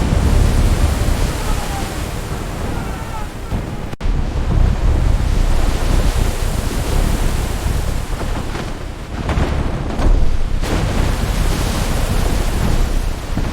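Storm at sea: heavy waves surging and wind rushing, a loud, dense, steady noise with a brief abrupt break about four seconds in.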